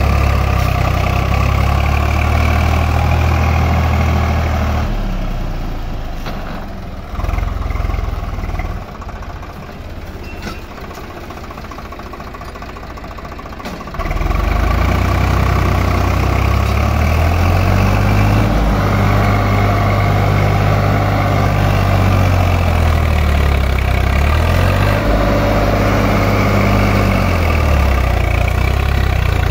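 Swaraj 744 FE tractor's three-cylinder diesel engine running while pulling a trolley loaded with sand. It drops quieter from about five seconds in, then comes back loud about halfway through and revs up and down several times as the tractor moves off.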